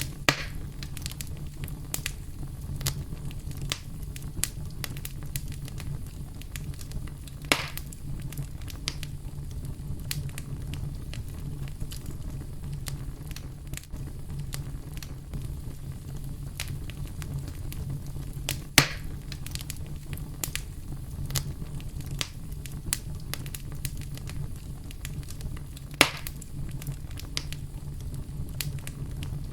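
Campfire crackling with frequent small snaps and four louder pops from the burning wood, over a steady low rumble of brown noise.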